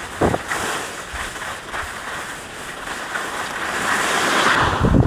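Skis hissing over groomed snow, with wind on the microphone. The scrape swells to its loudest about four seconds in as the skier carves a hard turn, followed by a few low thumps at the end.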